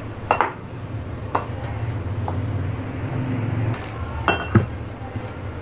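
Metal spoon scraping and clinking against a white bowl while stirring a dry flour mix, with separate clinks every second or so and a sharper, ringing clink about four and a half seconds in. A steady low hum runs underneath.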